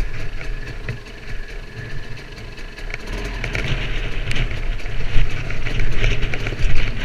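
KTM 200 EXC two-stroke single-cylinder enduro bike engine running at low revs on a rocky downhill track, with knocks and rattles from the tyres over loose stone. It grows louder about three seconds in.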